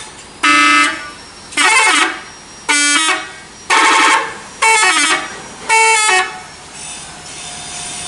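Telolet horn on the ALS 270 intercity coach being tested: six short blasts about a second apart, each a quick run of a few musical notes.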